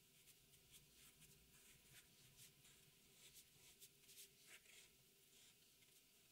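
Faint scratching of a felt-tipped marker drawing on paper, in many short, irregular strokes.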